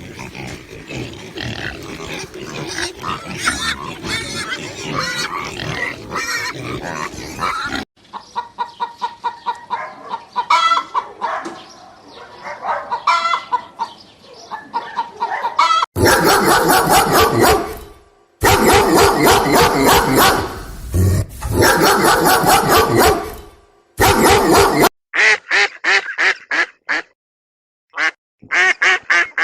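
Farm animals calling in a series of short clips cut one after another, with poultry and pig calls among them; the last few seconds hold a run of short, evenly repeated calls.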